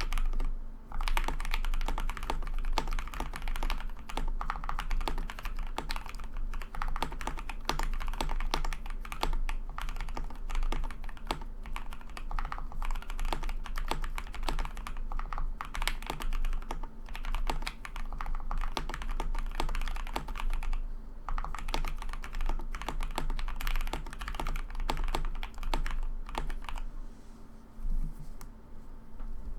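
Continuous fast typing on a KBD67 Lite R2 mechanical keyboard with lubed and filmed Alpaca linear switches, all foam fitted and lubed stabilizers. The typing slows and thins out near the end.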